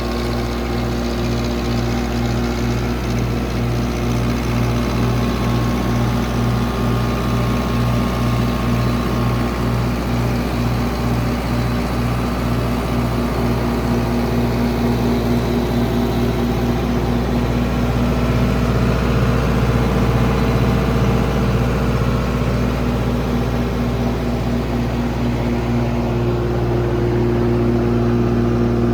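35 kW Cummins Onan diesel generator set running steadily: a constant engine drone with a regular low pulsing.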